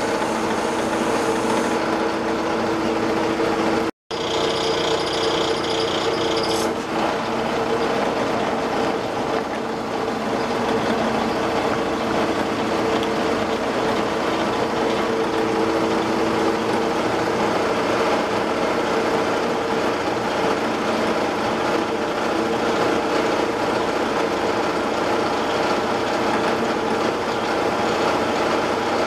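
Metal lathe running with a steady hum of motor and gearing while its carbide tool cuts a 12L14 steel workpiece. The sound drops out for an instant about four seconds in. A high ringing tone from the cut stops sharply around seven seconds in.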